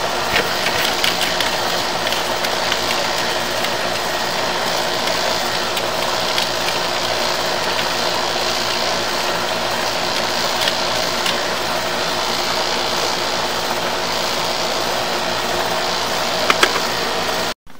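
Steady mechanical hum with a light rattle and a few faint clicks. It cuts off suddenly near the end.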